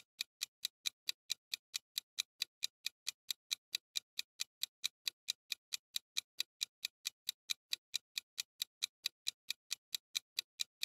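Countdown-timer ticking sound effect: steady, evenly spaced clock ticks, about four or five a second.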